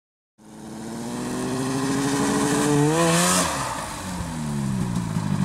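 Mountain snowmobile's two-stroke engine revving under throttle, its pitch climbing to a peak about three seconds in with a burst of hiss, falling off, then revving up again near the end, as the rider uses the throttle to pull the sled up onto its edge.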